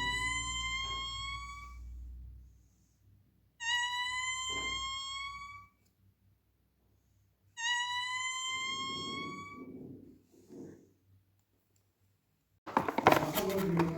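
Three identical electronic tones, each lasting about two seconds and rising slightly in pitch, repeat a few seconds apart. Near the end, loud rustling and clattering noise comes in.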